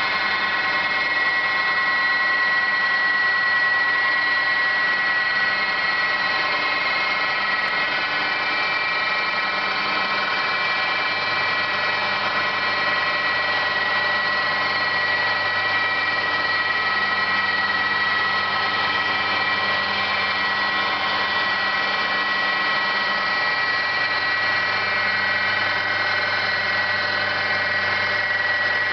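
Maho MH800 CNC milling machine running steadily as its end mill cuts the combustion-chamber bowl into an Iveco piston crown: a continuous steady whine with several high tones.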